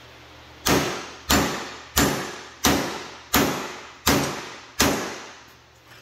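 A hammer striking a lug crimping tool held in a bench vise seven times, about two-thirds of a second apart, each blow ringing and dying away: a cable lug being hammer-crimped onto a battery cable.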